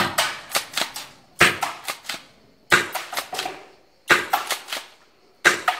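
Secutor Velites gas-powered airsoft shotgun fired five times, about one and a half seconds apart. Each sharp report is followed by a short rattle of clicks.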